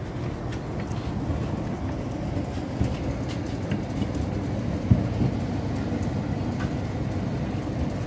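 A steady low rumble, with a few light clicks and a sharper knock about five seconds in as an RV keypad door lock is pressed and worked into the door's lock cutout.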